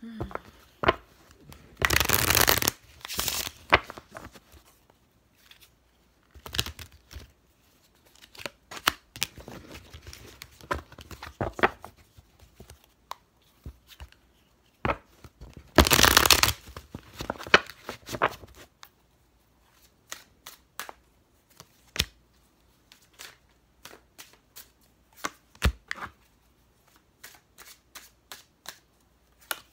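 A deck of divination cards being shuffled by hand, with many light flicks and taps and two longer, louder riffling runs, about two seconds in and again about sixteen seconds in. In the last third the shuffling gives way to sparse single soft taps as cards are laid down on a cloth-covered table.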